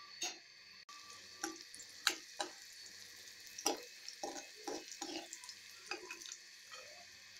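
Cashews sizzling in hot ghee in a metal kadai, with a steel ladle scraping and clinking against the pan in irregular strokes as they are stirred and scooped.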